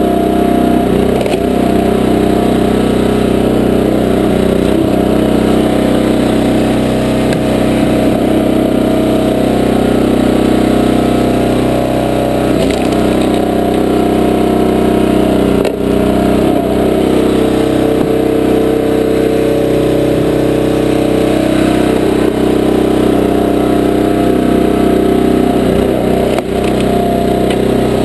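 Gas engine of a 20-ton Powerhorse horizontal log splitter running steadily at working speed, its tone shifting a little partway through. A few short, sharp knocks stand out over it.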